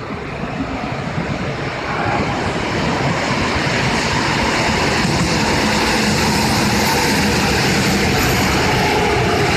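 Korail 351000-series electric multiple-unit train running into an underground station. Its rumble builds over the first few seconds and stays loud as the cars pass along the platform.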